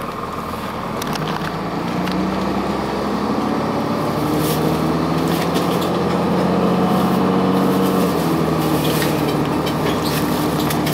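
Cummins ISC diesel engine of a 2002 Blue Bird CS transit bus pulling away from idle, getting louder over the first few seconds, then holding steady with its pitch dropping once about eight seconds in. Heard from inside the bus, with a few short rattles.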